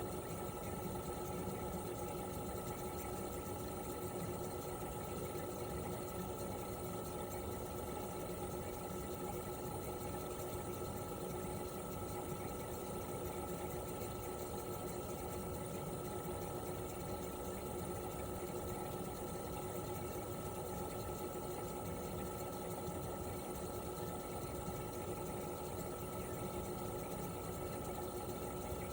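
Toshiba RAS-285BAD mini-split outdoor unit running steadily in cooling mode: its twin-rotary inverter compressor hums with two constant tones, one low and one higher, over an even noise from the unit's propeller fan.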